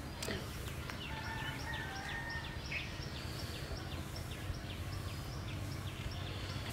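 Outdoor ambience: a steady low rumble, with birds calling over it, one of them giving a fast run of short high chirps, about three a second.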